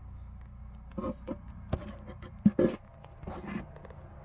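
A few sharp knocks and handling noises on the subwoofer's hollow chipboard cabinet, the loudest about two and a half seconds in, over a steady low hum.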